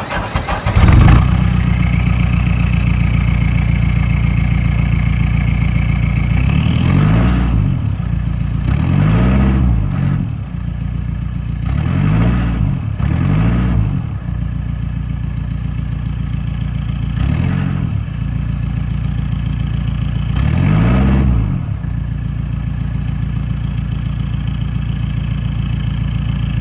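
A vehicle engine idling steadily, revved briefly about six times, each rev rising and falling back to idle.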